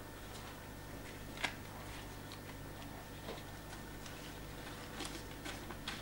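A few faint scuffs and light ticks from a cloth being wiped across an inked etching plate, over a steady low hum.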